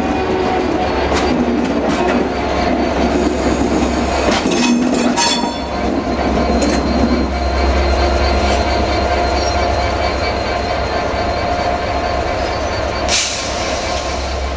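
Class 67 diesel-electric locomotive's EMD two-stroke V12 engine running as the locomotive moves light engine, with a steady low throb and a sustained whine. A cluster of clicks comes about four to five seconds in, and a short hiss near the end.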